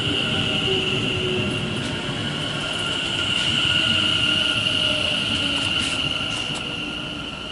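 Class 730 electric multiple unit arriving at the platform, with a steady high-pitched squeal from its wheels as it slows, loudest about four seconds in and easing off near the end.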